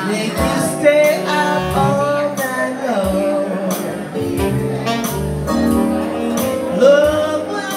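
A small live band playing a slow blues: a woman singing into a microphone over a Yamaha keyboard and a saxophone.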